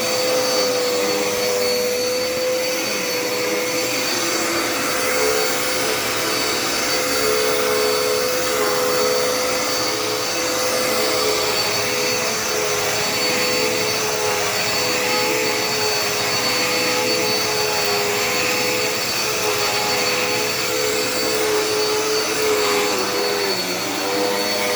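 Dirt Devil Endura Reach upright vacuum cleaner running steadily: a continuous motor hum and rushing airflow, with a steady tone and a slightly wavering second one beneath it.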